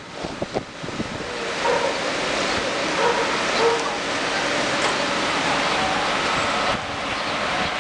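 Heavy rain pouring steadily, a dense even hiss that eases slightly near the end, with a few light knocks in the first second.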